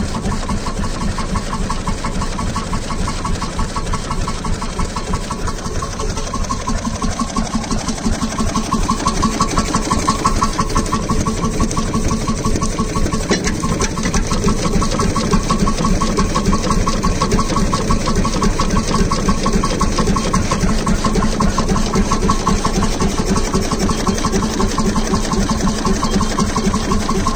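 1923 BMW 10 hp stationary farm engine running steadily with a fast, even beat, a little louder from about eight seconds in.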